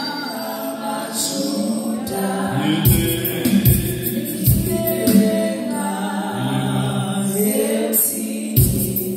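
Voices singing a gospel praise song, with heavy percussion beats in places.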